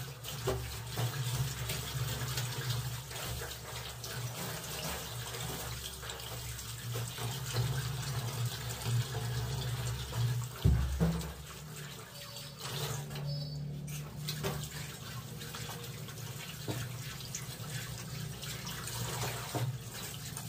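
Tap water running into a stainless steel sink while hands splash and rinse in it. A single sharp knock about ten seconds in.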